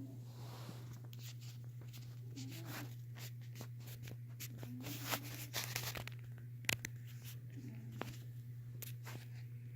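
Orange cat snoring softly: a short, wavering snore about every two and a half seconds, over a steady low hum, with scattered clicks and crackles.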